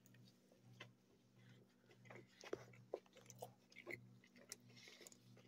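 Near silence with faint scattered clicks and rustles of a steak taco being handled and lifted off a paper plate, with faint biting and chewing; a faint low hum underneath.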